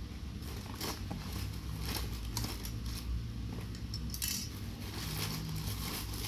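Small hard items clicking and clattering as a parcel's contents are handled and unpacked. There is a few scattered clicks over a steady low hum.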